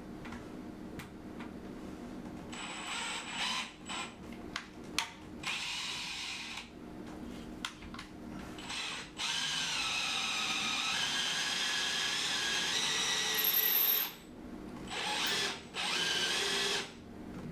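Cordless drill whining in short trigger bursts, then a steady run of about five seconds whose pitch shifts partway, then one more run near the end, as it drills or drives a screw into the screen's top rail to fix it to the ceiling.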